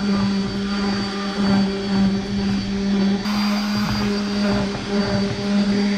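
Corded random orbital sander running steadily with 320-grit paper against a fiberglass outboard cowling, a constant motor hum over the scratch of the pad on the surface.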